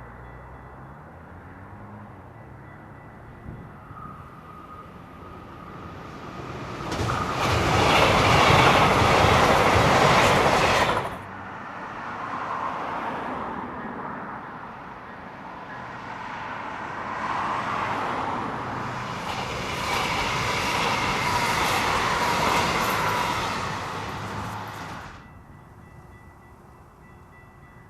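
Train passing on the rails, its wheels clattering, in two loud stretches that each cut off suddenly.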